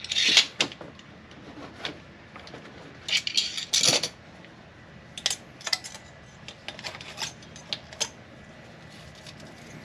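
Hand tools clinking on a cylinder head's valve train: a wrench on a rocker-arm adjuster lock nut and feeler gauge blades being worked at the exhaust valves while setting valve lash. It comes as scattered sharp metallic clicks, with a few quick clusters of clinks near the start and around three to four seconds in.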